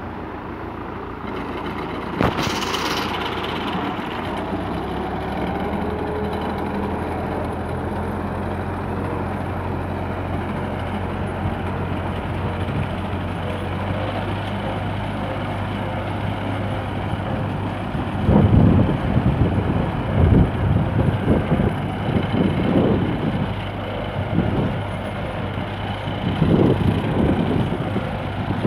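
MTZ-50 tractor's diesel engine and KSF-2.1 mower running steadily while cutting grass. There is a sudden sharp knock about two seconds in, and in the second half wind buffets the microphone in irregular gusts.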